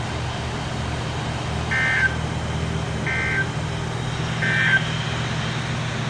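Emergency Alert System end-of-message signal: three short, identical bursts of high-pitched digital data tones about 1.4 seconds apart, marking the end of the severe thunderstorm warning broadcast, over a steady low hum.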